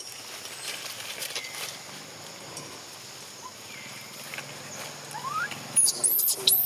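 Newborn long-tailed macaque crying: after a few seconds of faint rustling, a run of high, shrill, squeaky cries, about two a second, begins near the end.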